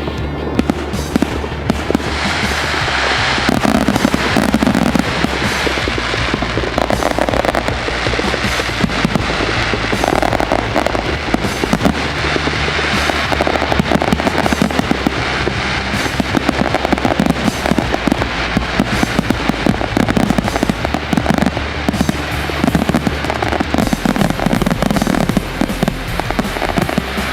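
Fireworks going off in a dense, continuous stream of rapid bangs and crackles. Music with a steady bass line plays along with them.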